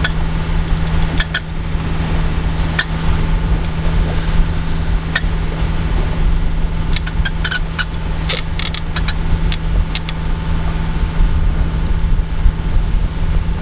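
A sailboat's inboard engine running steadily with a constant low hum, with a quick cluster of sharp clicks about seven to ten seconds in.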